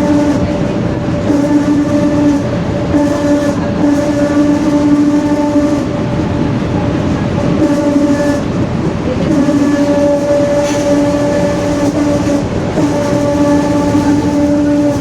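Rear differential of a Mercedes-Benz OF-1721 bus howling very loudly: a steady gear whine over the road and engine rumble, cutting in and out every second or two, with a longer break about halfway through.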